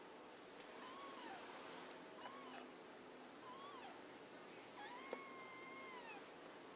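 Newborn kitten mewing faintly: three short, thin mews, then a longer, drawn-out mew about five seconds in.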